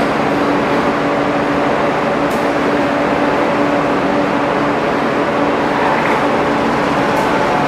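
Steady running noise of a passenger train heard from a carriage doorway as it stands at a platform: a loud, even drone with a low hum that drops away about five seconds in.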